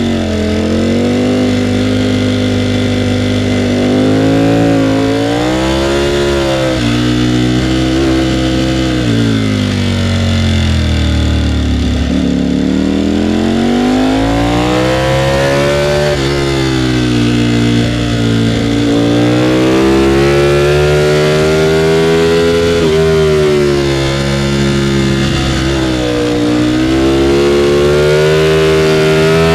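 Ducati Panigale V4R's 998 cc V4 engine under way, its pitch climbing as it accelerates and dropping as it slows, again and again through a run of bends. The deepest drop comes about ten to twelve seconds in.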